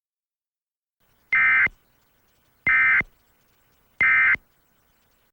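Emergency Alert System end-of-message signal: three short bursts of SAME digital data tones, each a two-tone buzz, evenly spaced about a second and a third apart.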